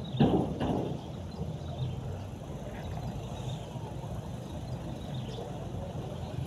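Steady low rumble of road traffic on the bridge overhead, with a short louder burst of noise about a quarter second in and faint high chirps scattered through.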